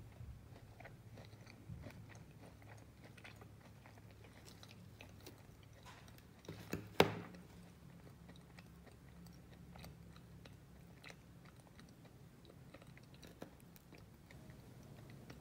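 Faint crumbly crackles of a crunchy-crusted chocolate chip cookie being broken and handled. About seven seconds in there is one sharp knock as a piece is set down on the wooden tabletop.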